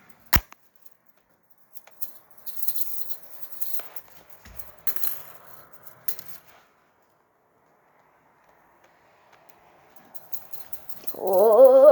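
Small handling noises of plastic eggs and candy wrappers: a sharp click about half a second in, then a few seconds of rustling and crinkling, then quiet. Near the end a long, wavering 'ooh' from a voice begins and is the loudest sound.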